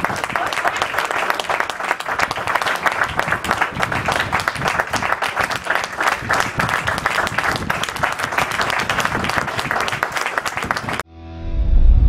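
Steady applause, rugby players clapping after the match. About a second before the end the clapping cuts off suddenly and a deep rumble swells up as a logo sting begins.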